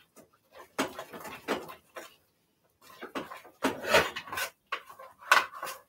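Small wooden paddle scraping and knocking against a pot as thick plantain fufu is turned, in irregular clusters of strokes with short pauses between them.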